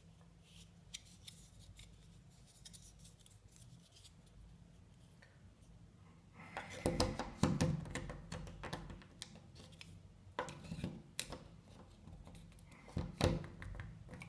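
Plastic Command hook being handled and pressed against a door: scattered clicks, taps and rubbing. It is faint for the first several seconds, then a run of sharp clicks and knocks starts about halfway through.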